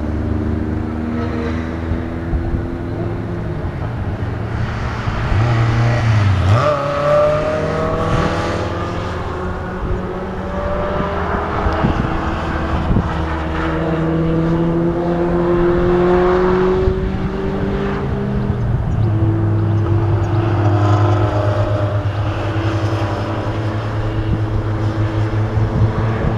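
Engines of several Seven-style lightweight open sports cars running on a race circuit, their pitch rising and falling as they accelerate and back off through the bends, several at once.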